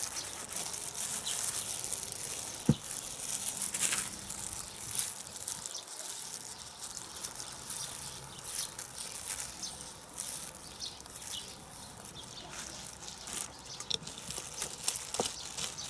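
Faint rustling and light clicks of hands in thin plastic gloves wiping a knife clean with alcohol, with one sharper click about three seconds in, over a steady outdoor hiss.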